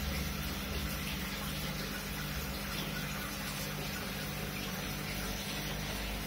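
Aquarium filter running: a steady rush of moving water over a constant low pump hum.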